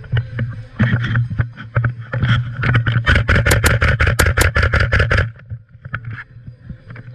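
Airsoft guns firing: scattered sharp cracks, then a fast string of shots about three seconds in that lasts some two seconds, over a steady low hum.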